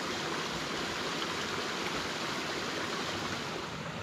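Water running through hidden channels under the rocks of a nearly dry riverbed: a steady rushing and trickling. It turns a little softer and duller near the end.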